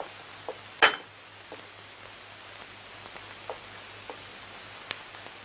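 Plates and cutlery clinking at a dining table: one sharp clink about a second in and a few fainter clicks, over the steady hiss and low hum of an old film soundtrack.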